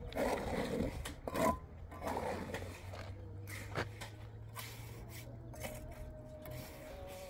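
Trowel scraping and spreading wet cement, with a few rough scrapes and a knock in the first three seconds, then quieter with a faint steady hum.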